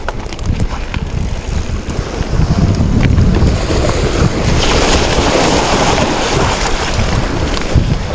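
Wind buffeting the microphone of a camera carried by a mountain biker while riding, a steady rushing noise with heavy low rumble that swells a little past halfway.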